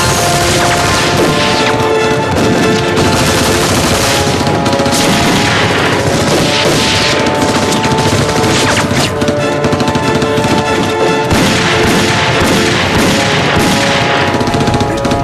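Dense, rapid gunfire from rifles and pistols in a film battle mix, with occasional booms, over background music with held notes.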